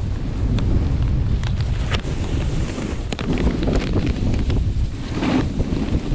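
Wind buffeting the microphone as a snowboard rides through fresh snow, with the board's edges scraping and hissing over the snow in short strokes and a louder swish about five seconds in.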